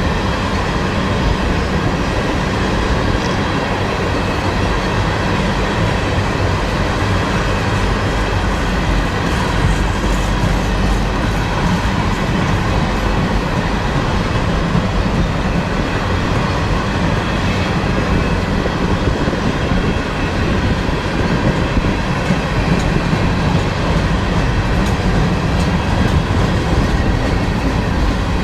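Train rolling past close by: a steady, loud rumble of wheels on the rails with some clatter and occasional wheel squeal.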